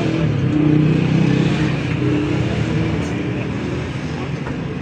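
A motor vehicle's engine running, loudest about a second in and then easing off slightly.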